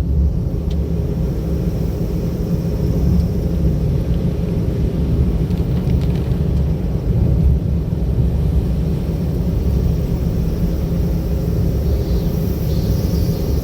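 Car driving along a road: a steady low rumble of engine and tyre noise, heard from the car-mounted camera.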